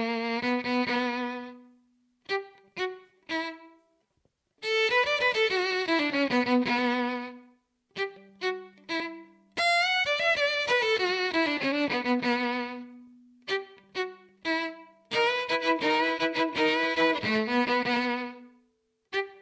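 Music: a violin playing fast downward-running phrases, broken up by short detached notes and brief pauses.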